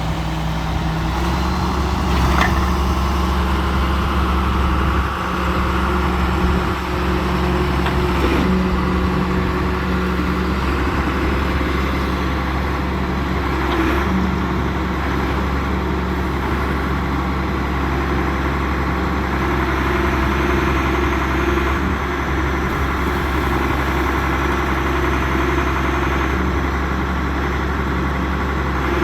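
John Deere 710G backhoe loader's diesel engine idling steadily, with a few faint clicks along the way.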